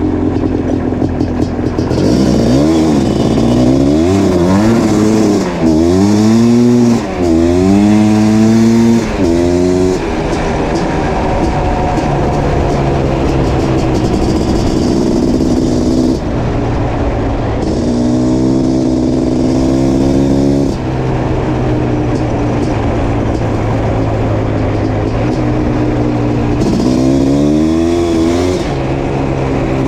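1987 Suzuki LT500R Quadzilla's 500cc liquid-cooled two-stroke single, through an FMF Fatty expansion chamber, running and revving. The engine pitch climbs and drops several times in quick succession early on, settles into steadier running, then climbs again twice more.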